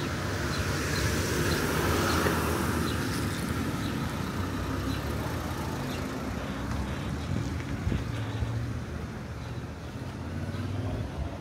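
A motor vehicle going past on a street, its engine and tyre noise swelling about two seconds in and then easing, with a low engine hum carrying on afterwards.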